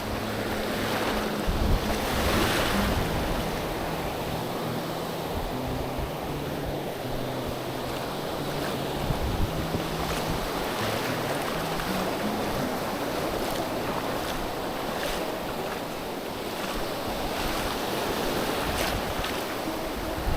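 Gulf surf washing onto the beach, with wind buffeting the microphone.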